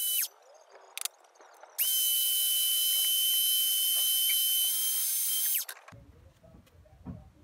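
Bench-clamped electric drill spinning a cotton buffing bob, a steady high-pitched whine. It cuts off within the first half-second, blips briefly about a second in, then runs again from about two seconds to nearly six seconds in and stops suddenly. A small engraved steel plate held in pliers is being polished against the buff.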